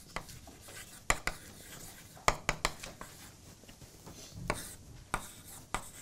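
Chalk writing on a blackboard: faint scratching strokes broken by sharp taps as the chalk strikes the board, several coming in quick clusters.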